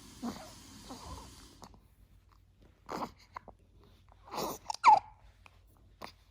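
Hiccups: several short, sudden hiccup sounds at irregular intervals a second or more apart, the loudest about five seconds in with a brief squeaky note.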